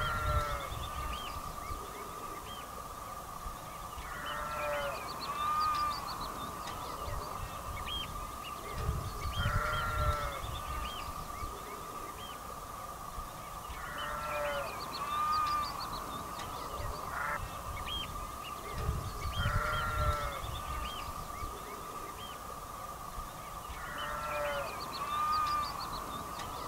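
Geese honking in groups of several calls that recur about every five seconds, over a steady faint high tone.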